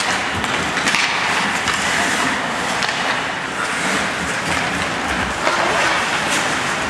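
Ice hockey skates scraping and carving across rink ice, a steady hiss, with now and then a sharp click of sticks or the puck.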